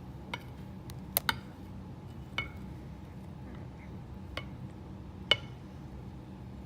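A large spatula stirring slime in a tub, knocking against the tub's sides and bottom in scattered sharp clicks, the loudest about five seconds in. The borax solution is being mixed into the clear glue, water and glitter to activate the slime.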